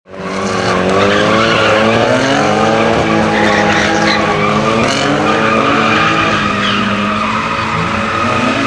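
Nissan S13 drift car's engine held at high revs while sliding sideways, its pitch rising and falling with the throttle, over steady tyre squeal. The sound fades in from silence at the very start.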